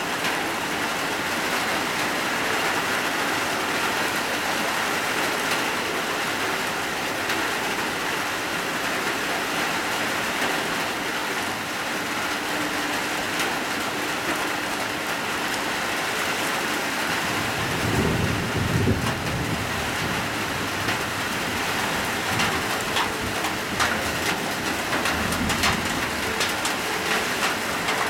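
Heavy rain falling steadily, a dense even hiss of drops on hard surfaces, with sharper drop taps toward the end. A low rumble comes about two-thirds of the way in and another shortly after.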